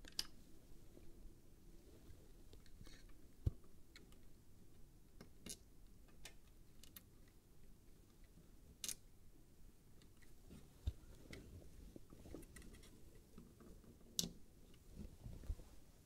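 Faint, scattered small clicks and light taps of a hand working a PC case fan's plastic connector and cables onto the motherboard header, with one duller knock about three and a half seconds in and near silence between.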